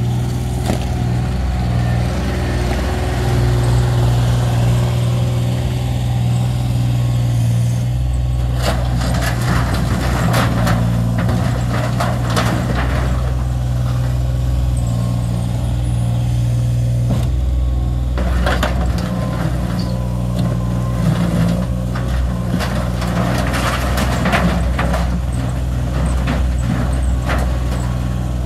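New Holland LS140 skid steer loader's engine running steadily under load. Two spells of clattering and crunching, one about a third of the way in and one past the middle, as the machine works into a heap of bent metal pool frame and liner.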